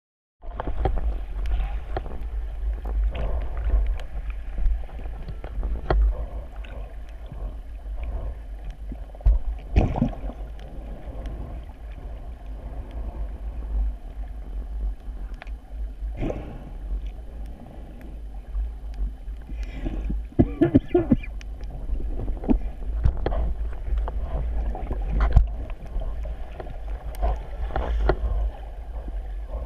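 Underwater ambience through a camera's waterproof housing, starting about half a second in: a steady low rumble with scattered muffled clicks and knocks as the diver moves over the sandy bottom with a metal detector. A brief muffled voice-like sound comes about two-thirds of the way through.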